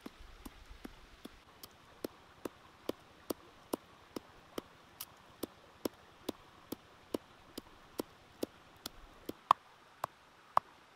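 Wooden pestle pounding dried red chilli peppers in a stone mortar: steady knocks about twice a second, a little uneven at first, the loudest near the end as the peppers break down into flakes.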